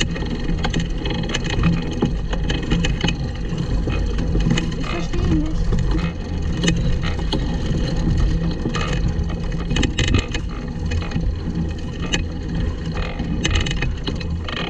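Pedal-powered kart rolling over bumpy grass, its frame rattling with irregular clicks and knocks over a steady low rumble, heard through a camera mounted on the kart.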